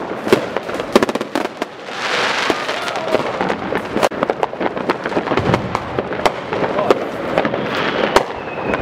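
Consumer fireworks going off: many sharp bangs and cracks in quick succession. From about two seconds in, a dense, continuous crackling hiss sits under them.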